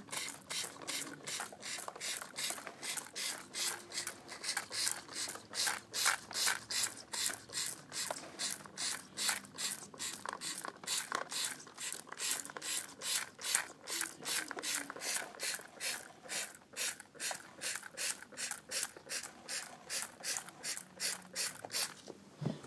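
Rapid, even pulses of hissing water spray, about three a second, over a wet toy car in a model touchless car wash.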